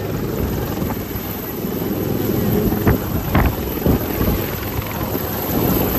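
HAL Dhruv helicopter hovering low close by, its rotor blades beating in a fast steady thud under the engine's whine. A few louder thumps come about three to four seconds in.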